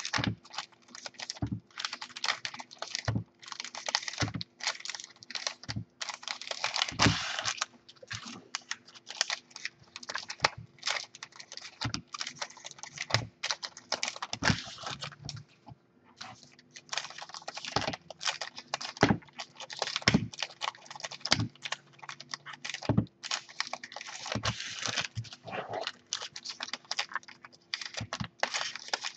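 Stiff trading cards being flicked through and sorted by hand, with stacks knocked and set down on a wooden table: a continuous run of papery flicks and clicks, punctuated by sharper knocks every second or two.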